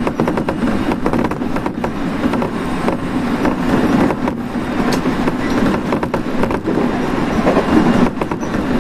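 Running noise of an electric passenger train at speed, heard from inside the carriage: a steady rumble of wheels on rail with rapid, irregular rattles and clicks.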